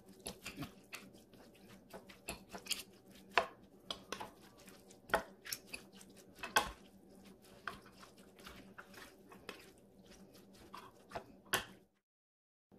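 Spoons clicking and scraping against a glass baking dish as a mayonnaise-dressed tuna salad is stirred: irregular taps, a few of them sharper and louder. The sound stops dead shortly before the end.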